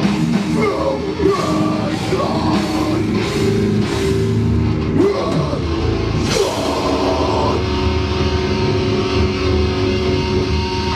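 Live heavy metal band playing loud, with distorted guitars and a drum kit. About seven and a half seconds in the playing thins to a held, ringing guitar tone.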